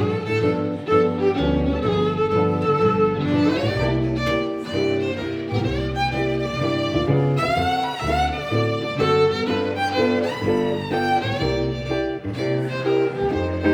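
Fiddle taking an instrumental solo in an old-time jazz tune, with quick melodic runs and slides over a bass line and rhythm accompaniment.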